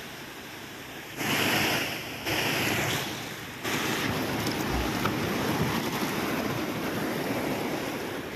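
Floodwater rushing over a submerged causeway, with wind buffeting the microphone. It jumps louder a little over a second in and again a few seconds in.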